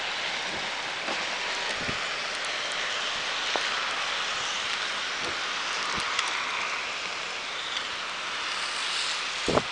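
Steady hiss of rain and wet road noise heard from inside a vehicle, with scattered small ticks and a thump near the end.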